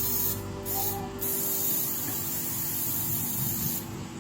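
Compressed air hissing in bursts: two short blasts, then a longer hiss of about two and a half seconds that cuts off sharply near the end.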